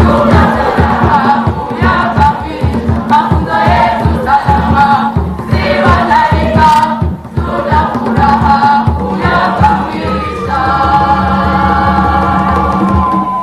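Large choir singing with a steady drum beat beneath the voices, closing on a long held chord that stops abruptly.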